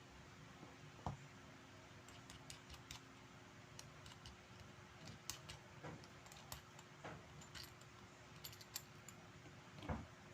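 Faint, irregular light metallic clicks and taps of small tools and parts being handled during work on a Seiko 7002 diver's watch, the sharpest about a second in and near the end.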